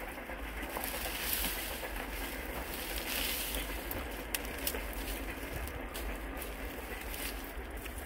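Dry grass rustling and crackling as it is pulled and cleared by hand, with a couple of sharp snaps about four and a half seconds in.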